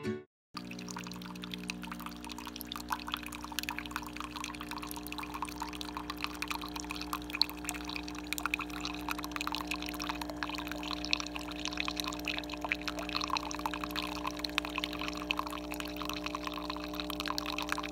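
Single-serve pod coffee brewer dispensing a thin stream of coffee into a glass measuring cup, a continuous splashing trickle over the machine's steady hum.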